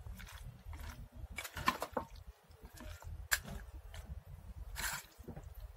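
Spoon stirring a creamy yogurt-and-mayonnaise salad in a stainless steel bowl: soft wet squelching with scattered scrapes and clicks of the spoon against the steel.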